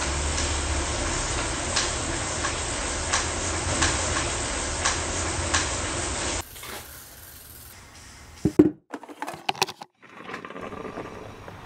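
Indoor bike trainer running steadily under pedalling, with a faint regular tick about three times every two seconds; it cuts off suddenly. Then a few sharp clicks and scrapes of a stovetop moka pot being screwed together.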